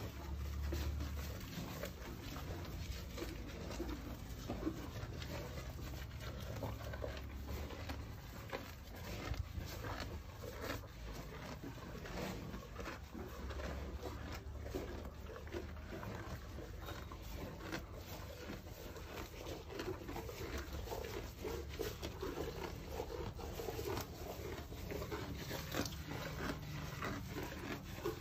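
Calf tearing and chewing fresh-cut green grass: an irregular run of crunching chews and rustling blades.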